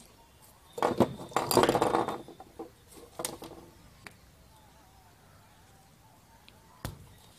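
Hand wire stripper at work on an insulated copper wire: clicks and scraping as the jaws close and pull the insulation off, loudest about a second in, more around three seconds, then one sharp click near the end.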